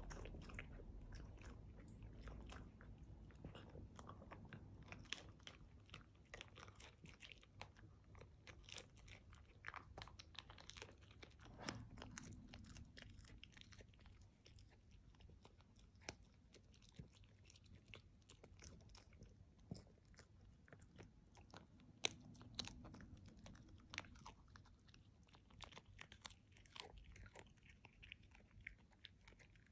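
Miniature dachshund chewing a hard dried treat: faint, irregular crunches and clicks of teeth on the chew, with one sharper crack about 22 seconds in.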